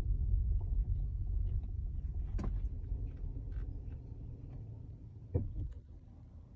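Tesla Model S interior road rumble fading away as the car slows, with two sharp knocks from the front end about three seconds apart. This is the front-end knock that the car's lower steering intermediate shaft was replaced for.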